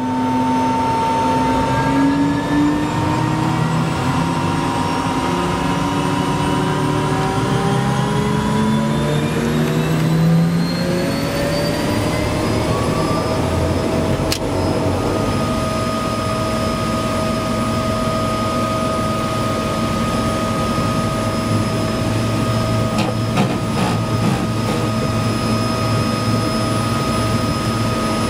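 De Havilland Otter floatplane's engine and propeller heard from inside the cockpit, the pitch climbing steadily for about the first dozen seconds as power comes up, then holding at a steady high drone while the plane runs across the water.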